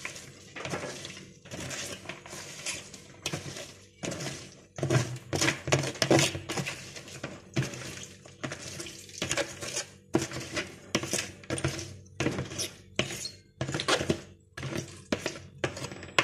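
Wooden spoon knocking and scraping against a plastic basin and the rim of an aluminium pot as chopped greens are pushed into the pot: an uneven run of short knocks and scrapes, two or three a second.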